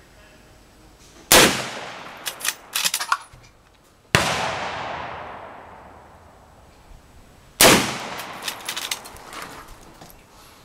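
Three .357 Magnum gunshots, about three seconds apart. The middle shot has a long fading echo, and scatters of sharp small clicks follow the first and last.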